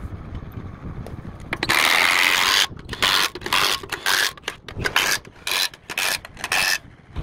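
Milwaukee cordless impact wrench hammering lug nuts onto a wheel hub: one long run of about a second, then a series of short bursts as the nuts are snugged down tight.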